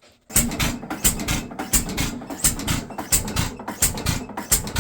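6 hp Fairbanks Morse hit-and-miss engine running, its exhaust giving sharp, uneven bangs about three or four a second; it starts suddenly about a third of a second in.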